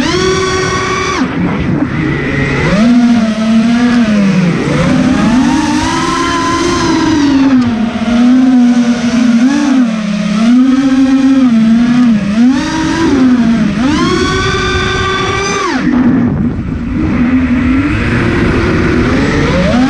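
FPV racing quadcopter's motors and propellers whining, the pitch rising and falling constantly with the throttle. Two short full-throttle bursts, one at the start and one about fourteen seconds in, each drop off sharply.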